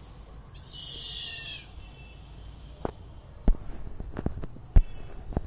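A bird's harsh, shrill call lasting about a second, falling slightly in pitch. It is followed by a run of sharp clicks, with two louder knocks about three and a half and five seconds in.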